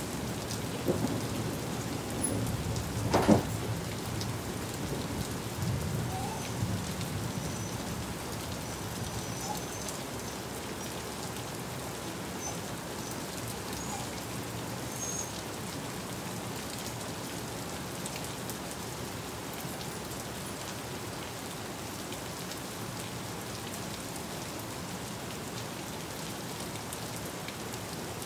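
Heavy monsoon rain pouring onto hard surfaces as a steady hiss. There is a low rumble of thunder over the first several seconds and a sharp crack about three seconds in, the loudest moment; then only the even rain.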